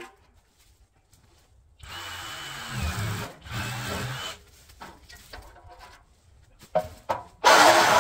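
Flex 24-volt cordless reciprocating saw cutting steel RV trailer frame: one run of a couple of seconds with a thin whine, then a much louder, steady run starting near the end.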